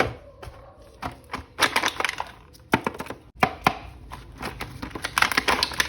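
Sharp plastic clicks, taps and crinkles from an action figure and its plastic packaging being handled and unwrapped, in quick irregular clusters.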